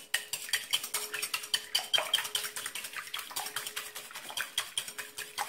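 Wire balloon whisk beating eggs in a glass bowl: quick, even clinking of the metal wires against the glass, several strokes a second.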